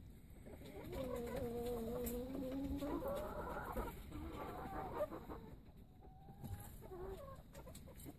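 Domestic hen on the nest just after laying, giving one long, drawn-out low call of about two seconds, then a higher call and a few shorter calls.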